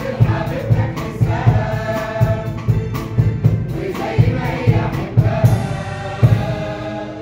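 Live choir of voices singing a song, accompanied by keyboard and oud, with a steady low beat about twice a second.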